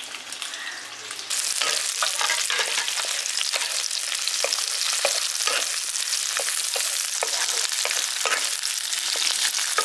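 Onion and capsicum pieces stir-frying in hot oil in a wok: the sizzle jumps up about a second in and stays steady, with a wooden spatula knocking and scraping against the pan as it stirs.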